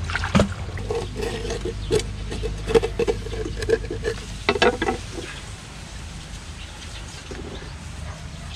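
Irregular clicks, taps and scraping for about five seconds over a low steady rumble, after which only the rumble remains.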